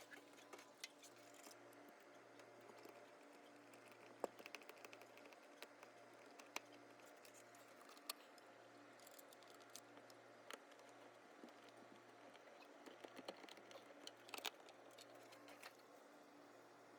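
Near silence with faint, scattered clicks and taps, clustered near the end, from an extended RV entry-door grab handle being fitted and screwed to the door frame.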